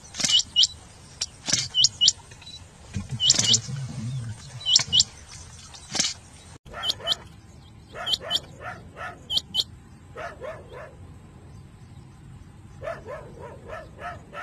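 Rain quail calling: sharp, high two-note calls given in quick pairs, about one pair a second. After a break about six and a half seconds in, the pairs go on, and later come runs of lower, quicker notes in clusters.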